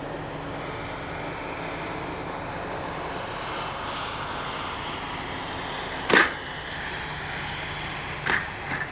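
Steady airy rush with a faint hum as an E-flite Piper Cherokee RC plane comes in to land. A sharp, loud thump comes about six seconds in, then two lighter knocks near the end, fitting a hard, bouncing touchdown.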